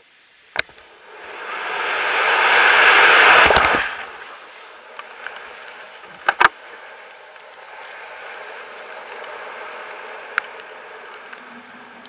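Wind rushing over the camera's microphone in a BASE jump's freefall, building for about three seconds and cutting off abruptly as the parachute opens. Then a softer steady wind under the canopy, with a sharp knock just before the rush begins and a pair of sharp clicks about halfway through.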